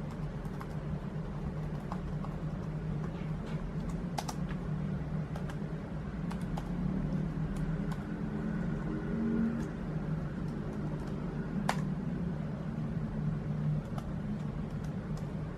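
Miele S8310 canister vacuum running steadily during an airflow measurement, a constant low hum with a light haze of rushing air, with scattered light clicks.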